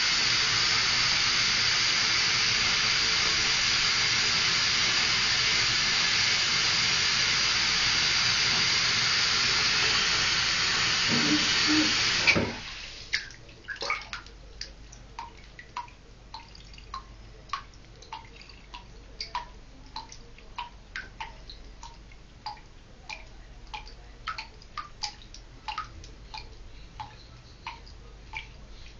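Bathtub tap running into a filled tub with a steady rush, shut off about twelve seconds in with a short knock. Then small drips plink into the bathwater about twice a second.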